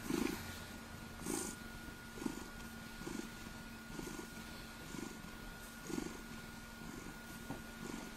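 Ragdoll cat purring while being petted, the purr swelling with each breath roughly once a second.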